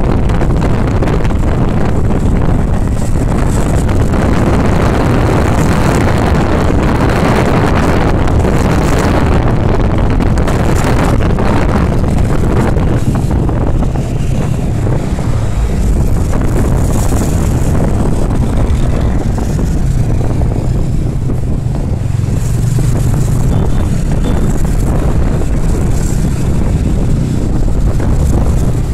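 Motorcycle riding in traffic, heard from the bike itself: steady engine drone mixed with wind rumbling on the microphone, easing a little midway.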